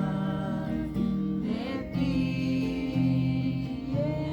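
Acoustic guitar strumming the chords of a worship song, changing chord about once a second, under a long held sung note.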